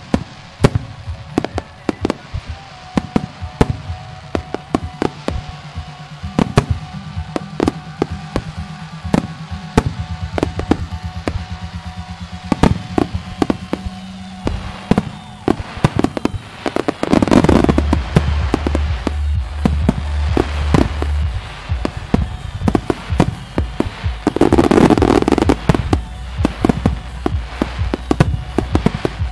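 Fireworks finale: aerial shells bursting one after another in a rapid series of sharp bangs, with music playing underneath. The bursts grow into dense, louder barrages about two-thirds of the way in and again near the end.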